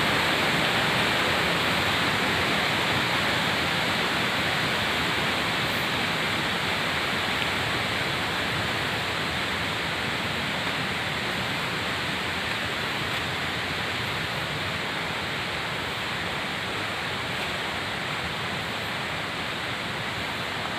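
Steady rush of running water, slowly getting a little quieter.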